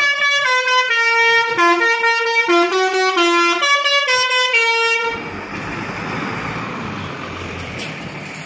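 Telolet basuri musical bus horn playing a quick tune of changing notes, cutting off about five seconds in. The tour bus's engine rumble and road noise carry on after it.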